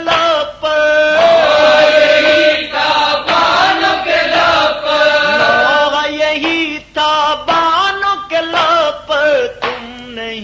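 Male voices chanting a noha, an Urdu lament, in long held notes that slide in pitch, with short breaks between phrases.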